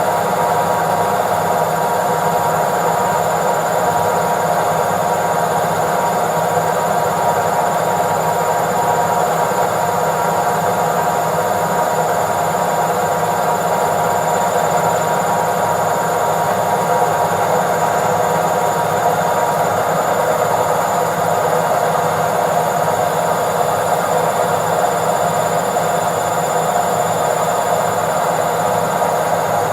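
Indesit IWC71252 front-loading washing machine on its spin cycle, the drum spinning steadily at speed. It is an even whir with a few held high tones running through it, with no change in pitch or loudness.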